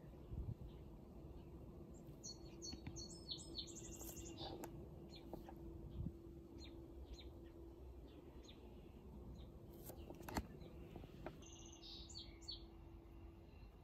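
Faint birds chirping: a quick run of high chirps a couple of seconds in and another short run near the end, over a faint steady low hum, with a single sharp click about ten seconds in.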